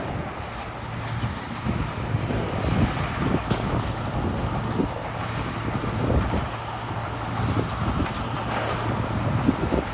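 Komatsu D41P bulldozer's diesel engine running steadily, with irregular clanking and clatter from the tracks and gravel as it works.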